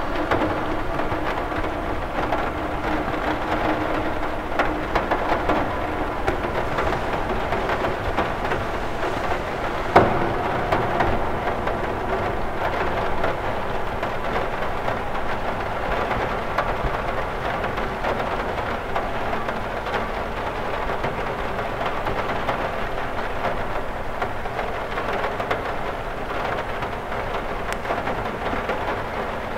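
Steady rain on a cathedral window, a dense even hiss of many small drop ticks, with one louder tap about ten seconds in.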